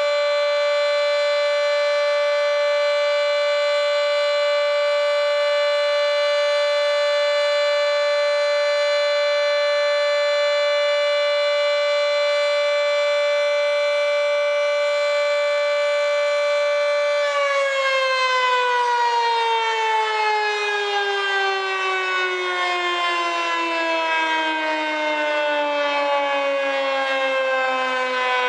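Federal Signal 2T22 three-phase dual-tone warning siren, its top intake blocked, sounding a steady Alert tone; about two-thirds of the way in the tone stops being held and the siren winds down, its chord falling steadily in pitch.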